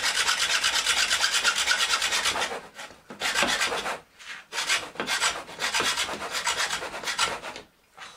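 Fine-toothed hacksaw cutting through a bamboo cane: fast, even back-and-forth rasping strokes, about five a second, then from about two and a half seconds in slower, uneven strokes with short stops. The saw is getting hard to push as the blade starts to bind in the cut.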